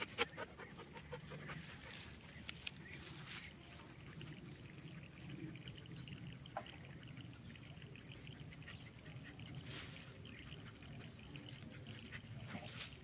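Faint outdoor ambience: a high, even chirp pulsing on and off about once a second, over soft low rustling and a few small clicks.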